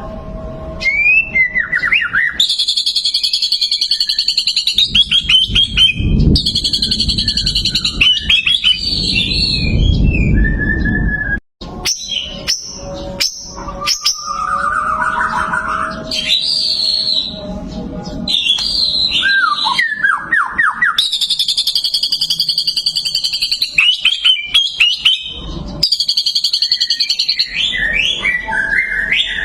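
White-rumped shama singing a long, varied song: fast high trills, rising and falling whistled notes and sharp chattering phrases, broken by short pauses. A low rumble sits under the song for a few seconds early on, and a run of sharp clicks comes about halfway.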